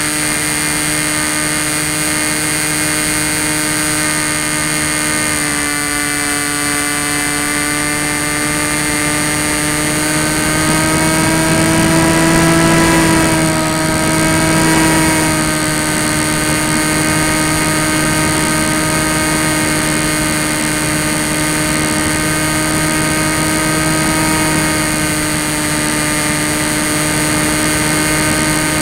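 Tek Sumo flying wing's electric motor and propeller heard from the onboard camera in flight: a steady whine over a rush of air. The pitch and loudness rise a little about twelve seconds in, then settle back.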